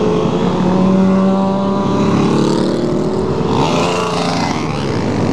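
Several motorcycle engines, a sportbike and supermoto dirt bikes, running as a group rides past at close range, their pitch holding and then sliding up and down as riders work the throttle.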